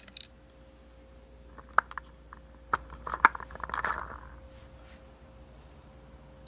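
Several sharp metallic clicks, then a short rattle about three to four seconds in, as a brass rifle cartridge is handled and turned in a concentricity gauge.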